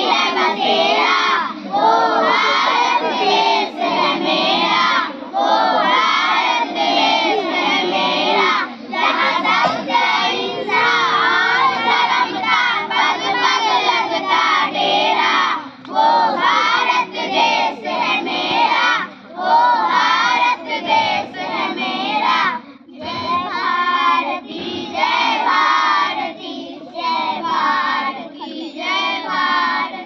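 A group of children singing a Hindi song together in unison, with no instruments, pausing briefly about three-quarters of the way through.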